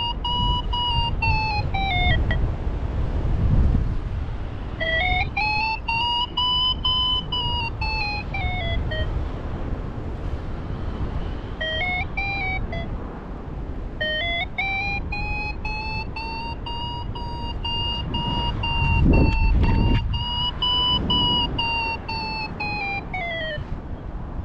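Paraglider variometer beeping in flight, its pitch rising and falling in long arcs as the climb rate builds and fades in ridge lift, and cutting out three times for a few seconds when the glider is not climbing. Wind rumbles on the microphone underneath, loudest about nineteen seconds in.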